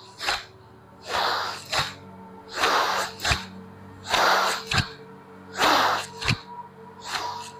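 Bhastrika pranayama (bellows breath): forceful, noisy breaths in a steady rhythm. Each is a longer blast followed by a short sharp one, about every second and a half, five times.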